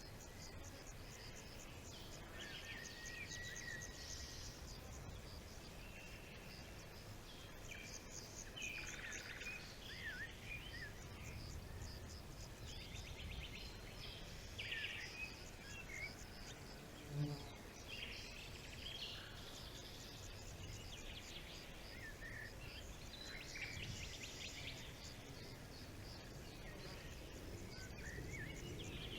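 Forest birdsong: many small birds chirping and trilling in short phrases over a steady low rumble. Partway through, a brief low-pitched sound stands out as the loudest moment.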